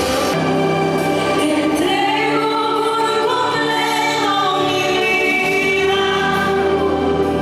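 Worship music: a group of voices singing long held notes.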